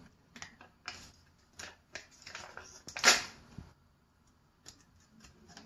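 A small packet of flan powder being handled and torn open by hand: scattered crinkles and rips, with one louder tear about three seconds in.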